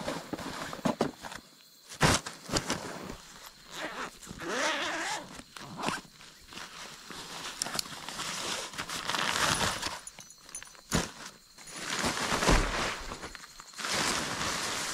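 A packed dome tent being pulled from a backpack, slid out of its stuff sack and unrolled: nylon and plastic fabric rustling and crinkling in uneven swells, with scattered sharp clicks.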